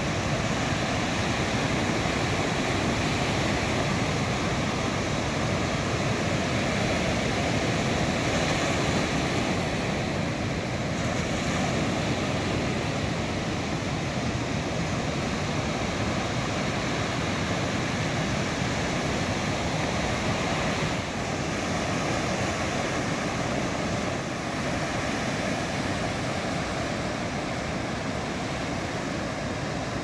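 Heavy ocean surf breaking and washing up the shore, a steady unbroken wash of whitewater noise.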